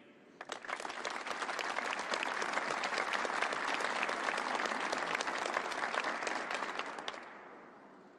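Audience applauding, building up within the first second, holding steady, then dying away about seven seconds in.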